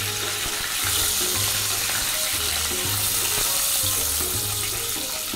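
Large prawns sizzling steadily in hot mustard oil in a wok, nearly done frying.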